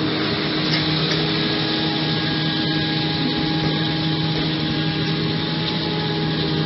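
Farm machinery running steadily: a John Deere 6630 tractor pulling a loaded silage trailer past close by, and a Krone Big X 1100 self-propelled forage harvester chopping standing corn. Together they make a dense, even drone with a few constant humming tones over it.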